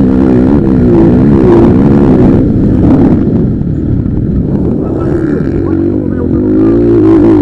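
Motocross bikes' engines running on the track, their pitch rising and falling quickly as the riders work the throttle.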